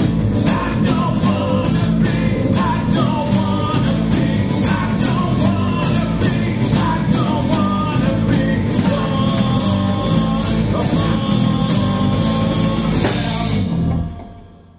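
Rock music with a driving drum beat and a melody line on top. It stops near the end and dies away.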